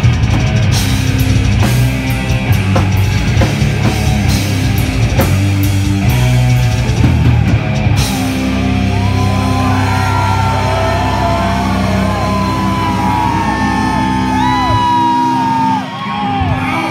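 Live death metal band: pounding drums with distorted guitars and bass for about eight seconds, then the drums stop and a lead guitar plays bending, sliding lines over held low chords. Near the end the low notes drop out and yelling comes in.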